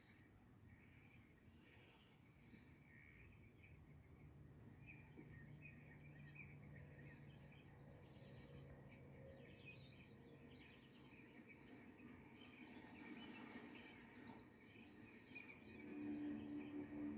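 Faint, steady chirping of night crickets on a film soundtrack, heard through a TV's speaker. Low sustained music tones come in near the end.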